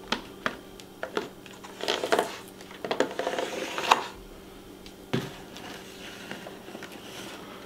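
Handling a clear plastic snake-shipping container: plastic clicks and knocks, a rasping peel as the red sealing tape is stripped from the lid's rim, then a knock as the container is set down on a wooden table about five seconds in.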